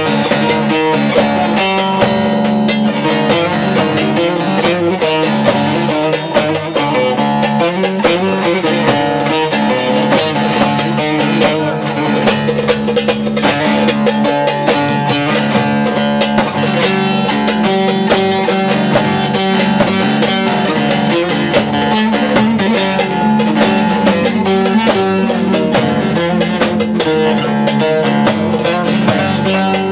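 Bağlama (Turkish long-necked saz) playing an instrumental folk-music passage with electronic keyboard accompaniment, over a held low note.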